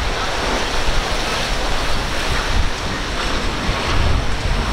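A center-console boat with quad Yamaha outboards running past at speed, its hull and wake rushing through the water, with heavy wind buffeting on the microphone.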